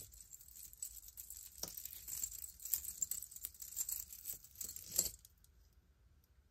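Tangled costume jewelry, plated-metal chains and pieces, clinking and jingling lightly as it is handled, a string of small clicks that stops about five seconds in.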